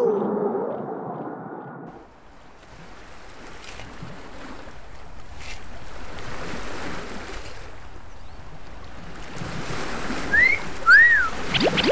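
Sea waves washing on a shore, a steady rushing surf that builds up after the first couple of seconds. Near the end come a few short high chirping calls.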